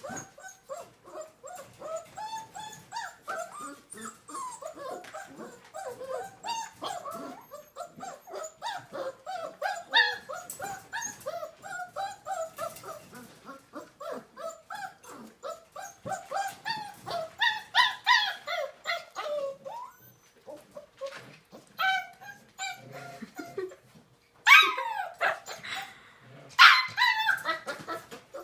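A dog whining and yipping in a long run of short, rising and falling calls, several a second, with two louder, higher yelps near the end.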